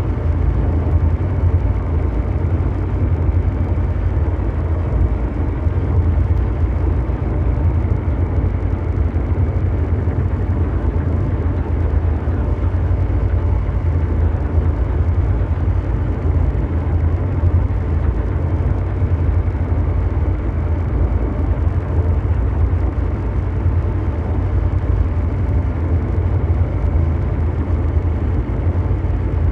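Ambient mechanical drone noise: a deep, steady engine-like rumble heavy in the bass, with a rough hiss above it and faint steady hum tones, unchanging throughout.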